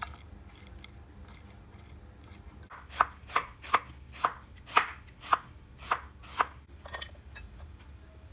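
Knife chopping on a cutting board: about nine even strokes, roughly two a second, starting about three seconds in.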